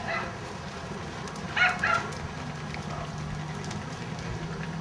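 A dog barks twice in quick succession, short high-pitched play barks, about a second and a half in, during rough play between dogs.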